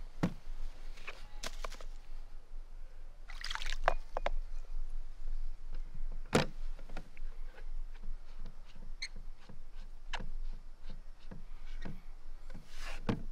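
Wet Japanese water stones and their rubber-footed stone clamp being handled and set up on an aluminium case lid: scattered knocks and clicks, with a louder knock about six seconds in and a brief noisy stretch around three and a half seconds.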